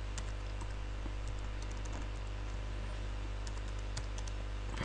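Computer keyboard being typed on: faint, irregular key clicks over a steady low hum.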